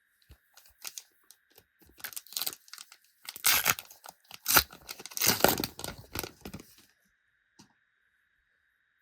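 Foil trading-card packet being torn open and crinkled, in a run of sharp crackles and rustles that peaks midway and dies away about two seconds before the end.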